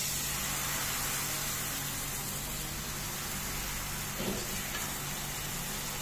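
Semolina and gram-flour batter sizzling on a hot oiled frying pan: a steady, even hiss.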